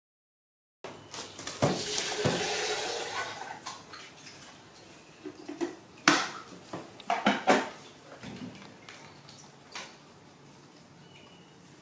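Aluminium rice pot knocking and clanking as a baby monkey grips its rim and scoops cooked rice out by hand, with a rustle of handling early on and a few sharp clanks about six and seven seconds in.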